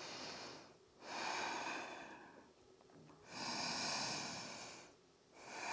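A woman breathing slowly and deeply in and out while holding downward-facing dog: four soft, airy breaths, each about a second and a half long, with short pauses between them.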